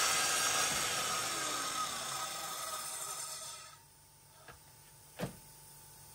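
Festool Kapex mitre saw's blade winding down after a crosscut, a falling whine under the steady rush of the dust extractor, which cuts off suddenly a little past halfway. Then a light click and a sharper knock.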